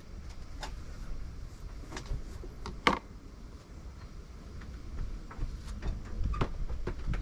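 Scattered light clicks and knocks of kitchenware being handled on a camping table, the loudest about three seconds in, over a low rumble of wind on the microphone.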